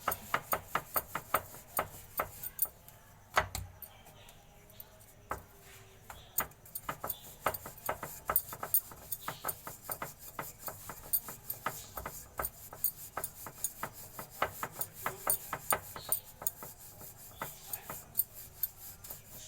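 A rolling pin rolling out pizza dough on a rolling board: soft rubbing with frequent sharp clicks and knocks, a few a second, as the pin moves back and forth.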